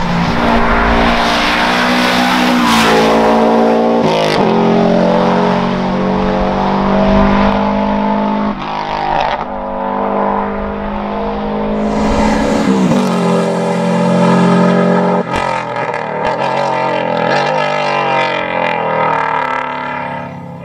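Subaru Impreza WRX STI's turbocharged flat-four boxer engine at full race pace, its pitch climbing and dropping back at each gear change as the car comes past. Near the end come a couple of sharp pops.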